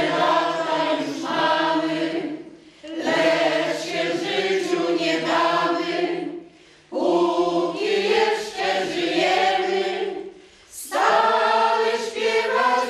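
Small amateur choir of mostly older women and a few men singing a song together, in four phrases with short breaks between them.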